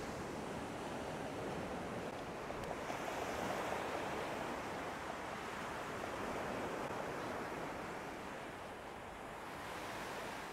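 Surf washing up the beach: a steady rush of breaking waves and foam at the shoreline.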